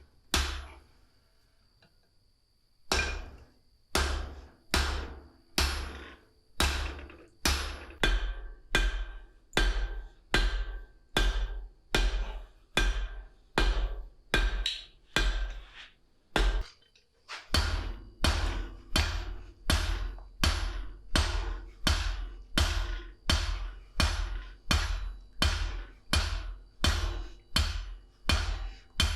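Outro music: a steady percussive beat of hammer-like strikes, about one and a half a second, over a deep bass that changes note twice. It starts about three seconds in and has a short break a little past halfway.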